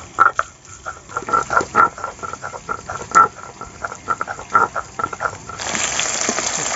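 Stone roller scraping back and forth on a grinding slab as garlic is ground to paste: repeated short strokes, a few a second. About five and a half seconds in, this gives way abruptly to a steady sizzle of fish pieces frying in hot oil in a wok.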